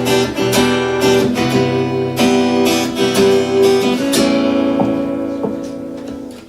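Acoustic guitar strumming chords in a song's instrumental opening. After about four seconds one chord is left ringing and fades away, and strumming resumes right at the end.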